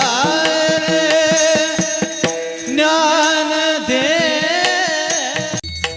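Varkari kirtan chal: a male voice holds long, wavering sung notes over mridang strokes and a steady drone. The music breaks off briefly near the end.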